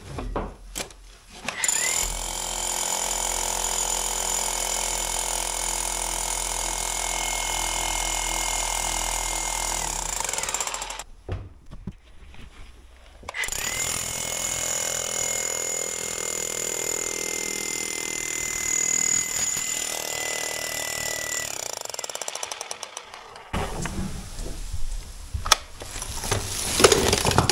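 Electric demolition hammer with a chisel bit breaking out old brickwork, running in two long runs with a steady whine and a pause of a few seconds between them. A few knocks follow near the end.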